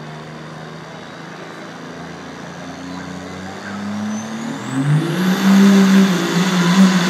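Turbo diesel Dodge dually pickup engine revving up under load as it starts a truck pull: the engine note climbs about four seconds in, with a high turbo whistle rising alongside it, then the engine runs much louder and steady.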